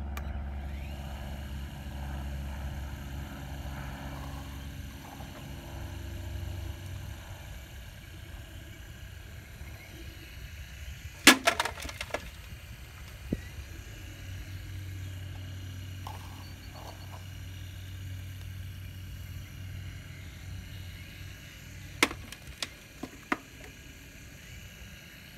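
Radio-controlled Cat excavator's drive running with a steady low hum as it swings and works its bucket. Sharp clatters of dirt and stones drop into the model Cat 785D haul truck's dump body: the loudest burst comes about halfway through and a few smaller ones come near the end.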